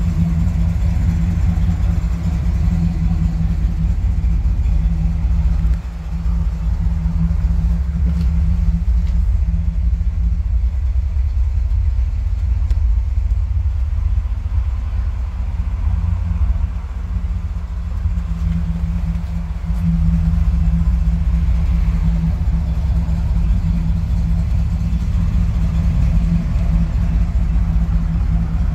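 A 1951 Chevrolet 3100 pickup's engine idling steadily, a low, even rumble.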